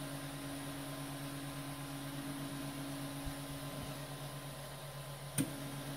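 Qidi X-One 2 3D printer's extruder motor feeding PETG filament down into the hot print head: a steady low mechanical hum. A single short click comes near the end.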